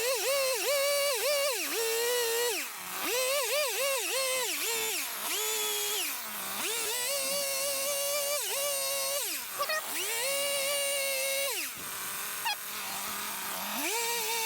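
Chainsaw carving wood in repeated bursts of a few seconds: the engine revs up, its pitch dips and wavers as the chain bites into the wood, then falls back in short lulls between cuts.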